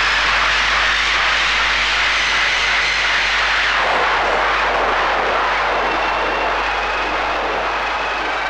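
Experimental noise music: a dense, steady wash of hissing noise, strongest in the upper-middle range, with a slow sweeping shift in its colour partway through. It gets slowly quieter near the end.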